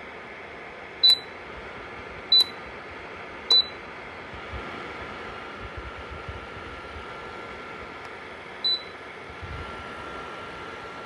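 PTC ceramic space heater's fan running steadily, with short high beeps from its control panel: three about a second apart, then one more several seconds later.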